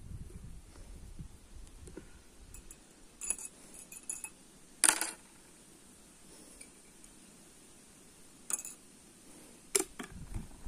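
Tea things being handled: about five sharp clinks and knocks of tea glasses, spoons and a metal double teapot, the loudest about five seconds in.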